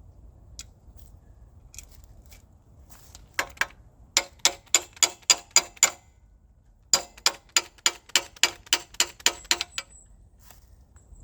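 Hand ratchet wrench clicking in two quick runs of sharp, evenly spaced clicks, about five a second, with a short pause between them, as bolts are worked on the engine.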